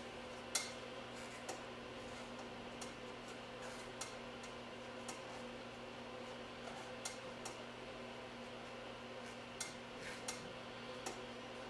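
Scattered light clicks and taps from manicure tools worked on fingernails, a few a few seconds apart, over a steady low electrical hum.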